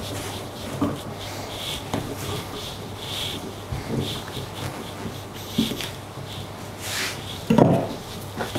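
Hands kneading and mixing dough: soft rubbing and light taps, with one louder thump about three-quarters of the way through.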